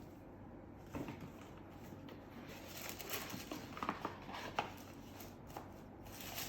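Faint rustling and crinkling of wrapping paper as a gift-wrapped package is opened, with a soft knock about a second in and a denser run of small crackles in the second half.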